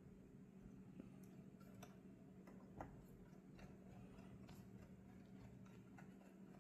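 Near silence with faint, irregular clicks and ticks of small screws and a screwdriver being worked into the plastic radio display unit, over a low steady hum.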